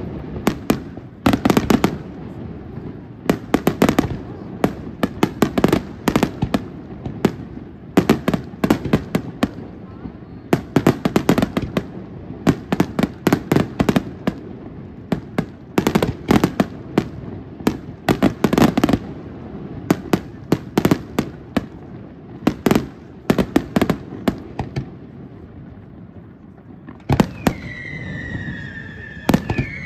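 Aerial fireworks display: rapid volleys of shell bursts, sharp bangs in dense clusters over a continuous rumble. Near the end the bursts thin out and two falling whistles sound.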